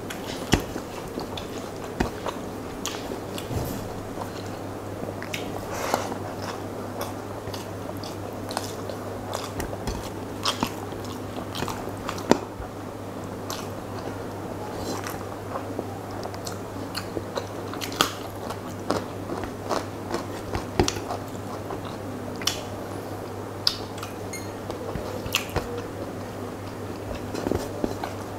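Close-miked eating sounds: chewing, biting and mouth noises from a person eating rice and curry by hand, with irregular sharp clicks scattered throughout over a steady low hum.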